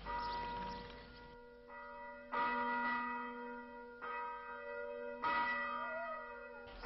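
A large bell tolling, struck every one to two seconds, each stroke ringing on with several steady tones that overlap the next.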